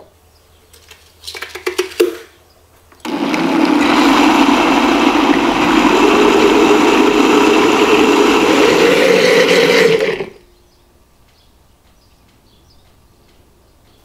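Countertop blender grinding soaked black soybeans, black sesame and cold water into soy milk. It runs loudly and steadily for about seven seconds, then cuts off suddenly. A few short clicks and knocks come just before it starts.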